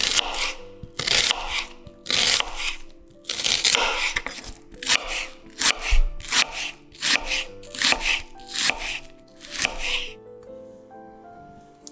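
Chef's knife slicing a red onion on a bamboo cutting board: a run of crisp crunching cuts, about one or two a second, that stops near the end. Soft background music runs underneath.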